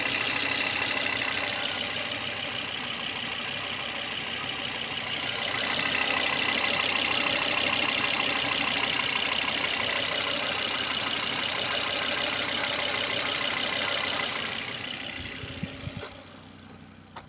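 Volvo S80 T5's turbocharged five-cylinder engine running steadily, louder through the middle and dying away near the end. The engine intermittently misfires and throws an ignition coil B code.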